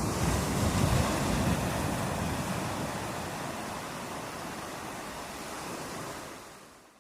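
Sea waves breaking on a shore: a wave crashes about a second in and its wash slowly dies down, and the sound fades out near the end.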